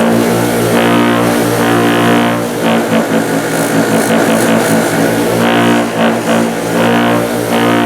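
A bench-mounted electric motor running steadily, with a hiss of abrasive wheel work that eases off briefly a few times as a workpiece is pressed to the wheel and lifted away.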